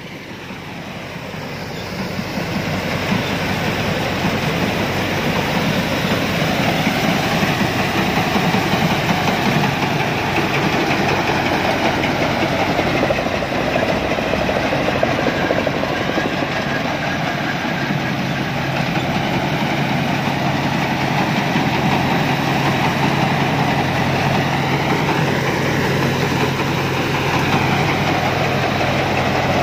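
A Pan Charoen Kan Chang rice combine harvester's engine running, growing louder over the first few seconds as it draws closer, then holding steady.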